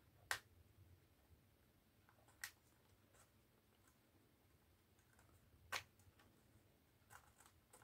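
Near silence broken by a few faint, spaced clicks of a fingernail working at the thin plastic shell of a 4DRC F3 drone, then a sharp snap at the very end as one of the shell's little plastic lugs pops over its catch.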